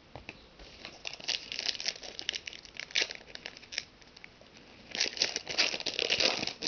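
Foil trading-card pack crinkling as it is handled and torn open: a run of crackly crinkles about a second in, then a louder, denser spell of crinkling and tearing near the end.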